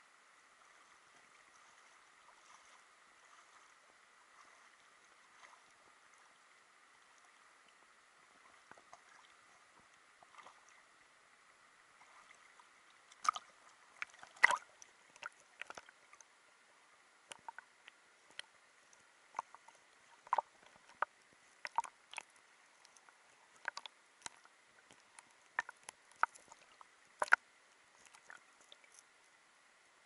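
Underwater sound in shallow sea water: a faint steady hiss with a thin high tone. From about halfway through comes a scattering of short, sharp clicks and taps at irregular intervals, the loudest a little after the middle and again near the end.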